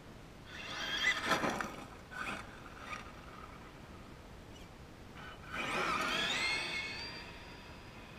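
Radio-controlled Traxxas E-Revo truck's Mamba brushless motor whining under throttle, twice: a short burst about a second in and a longer one about five and a half seconds in, its pitch rising and falling, the second winding down to a fading tone.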